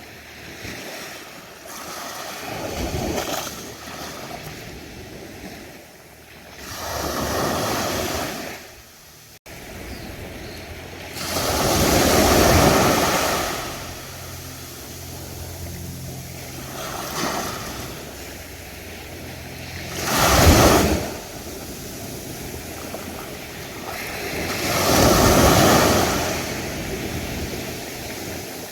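Ocean waves breaking and washing up on a beach: a steady rush of surf that swells every few seconds as each wave comes in, with one sharper, louder break past the middle.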